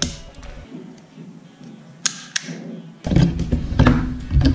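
Handling noise from the hard plastic switch housing of a Makita angle grinder: sharp clicks and taps, then heavier knocks and rubbing from about three seconds in as it is set down on the wooden bench.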